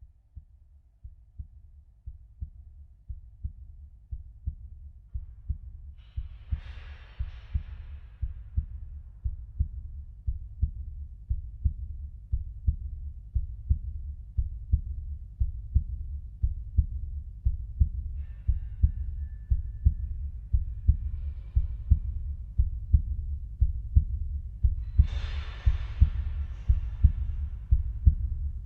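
Heartbeat sound effect: steady, evenly spaced low thuds that grow gradually louder, for a fear or suspense scene. Two brief hissing swells rise over the beat, one early and one near the end.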